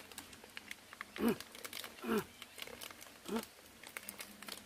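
Small crinkly clicks of a snack wrapper being picked open by hand. Three short voice-like sounds fall in pitch, about a second apart, and are louder than the clicks.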